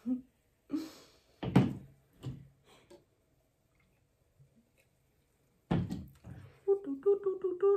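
A soda can and glass being handled and set down on a table: a few short thunks and knocks in the first three seconds and another near the end. Then a woman starts humming a tune.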